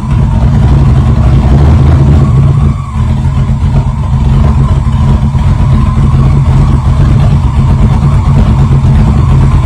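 Rebuilt, cammed LS1 V8 in a 2004 Pontiac GTO, running steadily with a low, even engine note; the engine is running again after the rebuild. A short drop in level about three seconds in.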